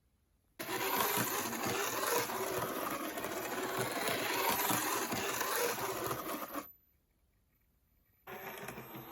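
Narrow-gauge model locomotive, a World Kougei Tateyama Sabo Railway kit, running on a test run: its small electric motor and gears whirring. The sound starts abruptly about half a second in and cuts off after about six seconds, and a similar, quieter run starts again near the end.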